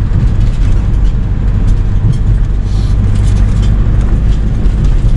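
Steady low rumble of engine and road noise inside a moving vehicle's cabin.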